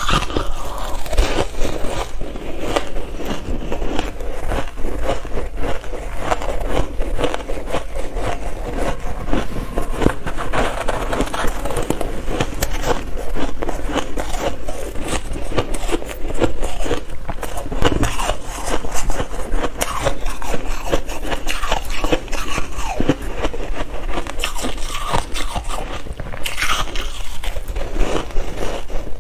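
Shaved ice crunching as it is bitten and chewed from small hand-packed lumps, a dense, continuous run of crunches, along with the scrape of fingers gathering and pressing the soft ice.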